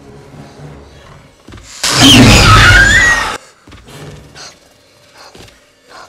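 A velociraptor screech boosted until it clips and distorts, lasting about a second and a half from about two seconds in, its pitch wavering and rising. Before and after it the soundtrack is faint.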